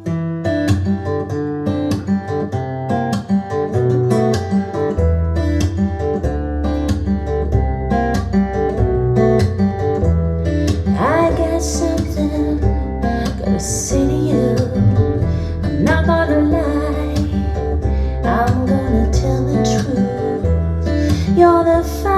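Recorded music played through an Audio Note Cobra push-pull valve integrated amplifier and AN-J-LX loudspeakers in a small room: acoustic guitar picking, with a low bass line coming in about five seconds in.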